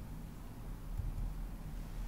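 Quiet room tone with no speech: a steady low hum and a faint hiss.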